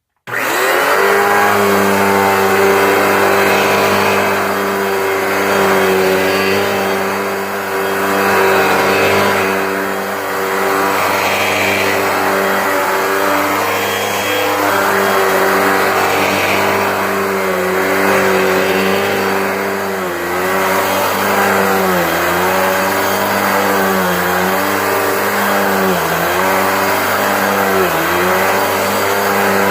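Hoover WindTunnel 2 High Capacity upright vacuum switched on and running loud, its motor spinning up at the start and then holding a steady whine, with the pitch dipping briefly about every two seconds in the second half. The owner doesn't know what makes the noise and suspects something underneath the brush roll.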